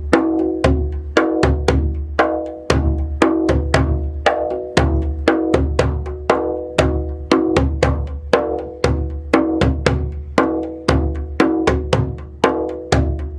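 Djembe played by hand in a steady eighth-note groove, about four strokes a second: deep bass strokes mixed with sharper slap strokes, and tone strokes filling every gap between them.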